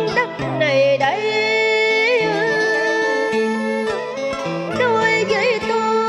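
Vietnamese cải lương stage music: a sliding, wavering melody with strong vibrato over steady low accompaniment notes and occasional plucked strings.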